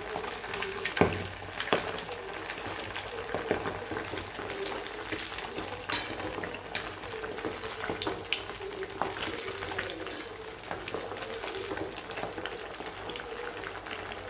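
Masala-coated fish pieces deep-frying in hot oil: a steady sizzle full of crackles and sharp pops, the loudest about a second in. This is the fierce, frothing stage just after the fish goes into the oil, before the froth dies down and the heat is lowered, with a wire skimmer moving the pieces about in the pan.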